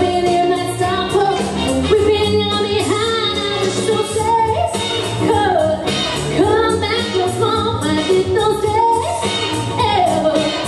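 A woman singing a Motown song into a handheld microphone over backing music.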